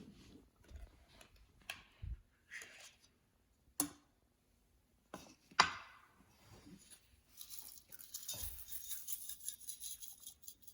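Slime being handled: scattered clicks and taps, two of them sharp, then a few seconds of fine, dense crackling.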